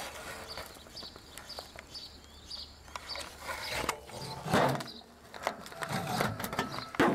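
A small bird chirping in short high notes repeated every fraction of a second through the first half, with louder rustling and knocks about four and a half seconds in and again near the end.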